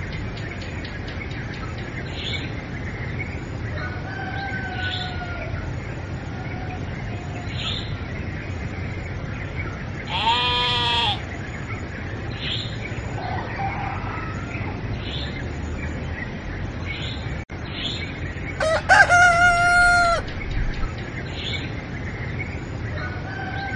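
Rooster crowing twice, about nine seconds apart, over a steady rural ambience with short bird chirps and a few fainter calls in between.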